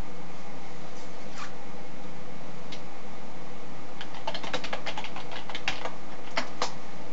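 Typing on a computer keyboard: a quick run of about a dozen keystrokes, then two more a moment later, over a steady hiss.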